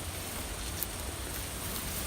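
Steady low rumble of wind on the microphone, with a few faint clicks or crackles, one just under a second in and another near the end.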